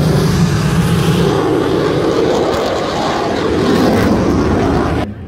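Aermacchi MB-339 jet trainer flying past, its turbojet making a loud, steady rushing noise that shifts slowly in pitch. The sound cuts off suddenly about five seconds in.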